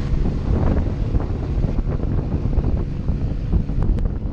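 Wind buffeting the camera microphone with a heavy low rumble, while the drone of a departing helicopter fades under it as it flies away. A couple of faint ticks near the end.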